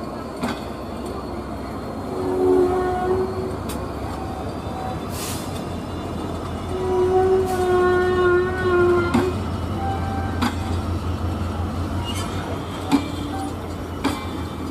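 Train running with a steady low rumble and occasional sharp metallic clacks from the wheels on the rails. A short horn sounds about two seconds in, and a longer horn blast of about two seconds comes near the middle.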